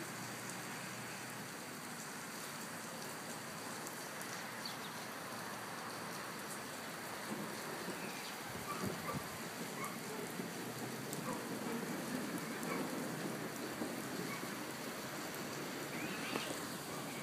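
Steady rain falling on pavement and a street, an even hiss that grows a little louder in the second half.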